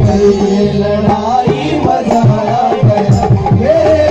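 Live amplified Indian stage music: a man sings a gliding melody over keyboard and hand-drum accompaniment.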